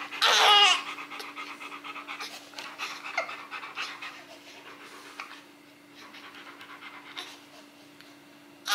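Rottweiler panting softly, fading out about halfway through. A brief newborn cry sounds just after the start and is the loudest sound.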